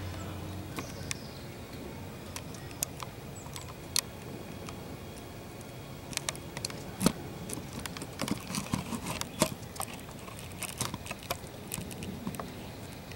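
Light, irregular clicking and crackling of dry leaf litter and pine needles as an eastern box turtle shifts in it. The clicks are scattered at first and come much thicker from about six seconds in.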